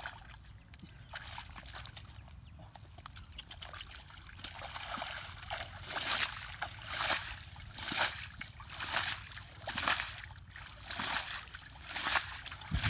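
Hands digging in wet mud and flinging handfuls aside, each throw landing in a wet splat. The splats come about once a second from about halfway through, with softer squelching before.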